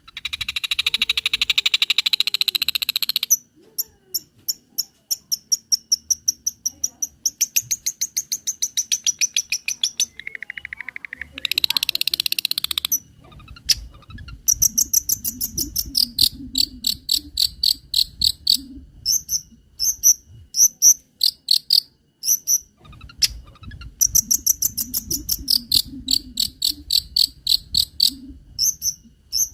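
Long-tailed shrike (cendet) song with cricket-like filler: rapid trains of high, clicking chips and buzzy trills, broken by short pauses. A low rumble sits under parts of the song.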